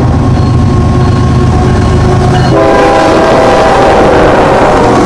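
Canadian Pacific diesel freight locomotives passing close by with a steady engine rumble while the air horn sounds a multi-note chord. A fresh, louder horn blast starts about halfway through and holds to the end.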